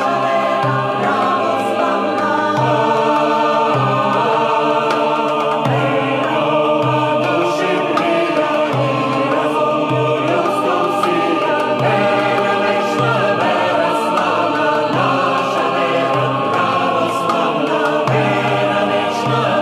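Background music: a choir singing sustained chords.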